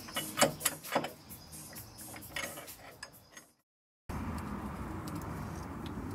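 Metal clicks and knocks as an aluminium engine mount bracket is handled and fitted against the engine. After a brief silent gap about three and a half seconds in, a steady low hum with a few light taps follows.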